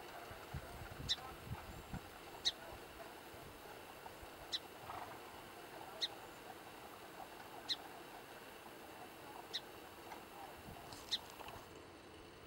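Song sparrow giving a short, sharp chip call over and over, about seven times, one every second and a half to two seconds.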